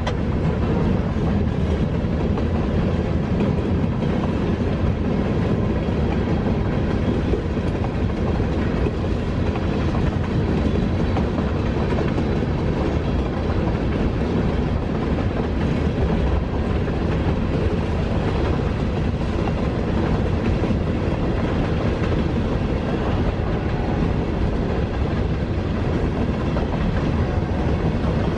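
Freight train of boxcars and tank cars rolling past, a steady rumble of steel wheels on the rails that keeps up without a break.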